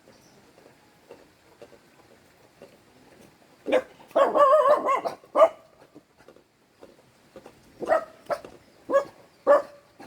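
A dog barking, starting about four seconds in with a longer wavering bark, then breaking into short barks roughly twice a second near the end.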